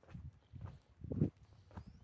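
Footsteps of a person walking on a paved path, four steps at about two a second, the third the heaviest.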